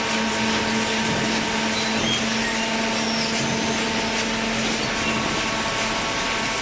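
Hydraulic cardboard baler running: a steady motor-and-pump hum under an even, loud mechanical noise.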